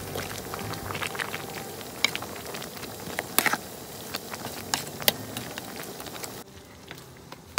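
Pot of coconut-milk catfish soup bubbling on the stove, a steady hiss with scattered sharp pops and crackles. The sound drops abruptly about six and a half seconds in.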